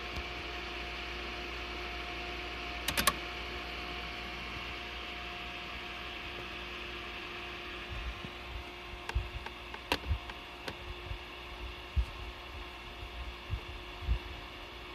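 Sony PVM-9044Q colour CRT monitor switched on and running, giving a steady electrical hum over background hiss. A quick cluster of clicks comes about three seconds in, and scattered low knocks and clicks follow in the second half.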